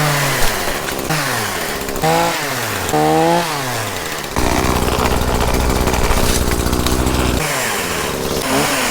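Chainsaw revving up and dropping back several times, then running steadily at full throttle for about three seconds, as in a cut through a holly limb, before easing off and revving once more near the end.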